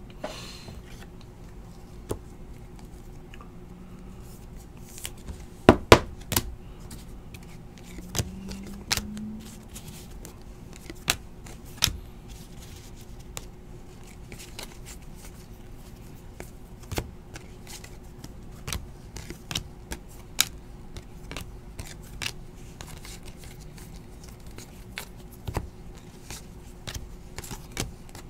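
2017-18 Donruss basketball cards being handled and sorted by hand: irregular clicks and snaps as cards are flicked, stacked and tapped, the loudest pair about six seconds in.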